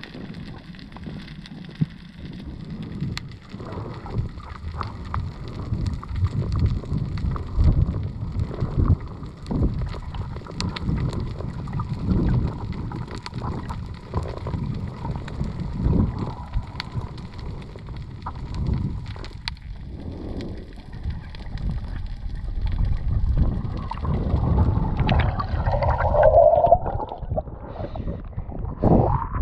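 Muffled underwater water noise heard through a submerged waterproof camera housing, with irregular low surges every couple of seconds and a few faint clicks. Near the end the camera breaks the surface with a brief burbling splash.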